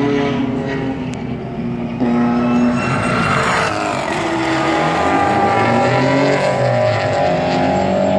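Several sports cars' engines running hard at high revs on a race track, their pitches overlapping; one car passes close about three seconds in, its engine note rising and then falling as it goes by.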